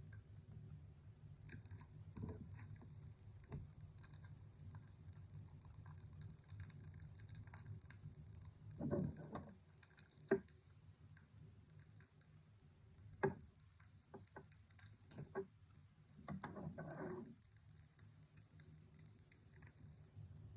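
Trading cards being handled: many light clicks and taps of card edges and sleeves, with a couple of brief louder rustles and two sharp clicks along the way.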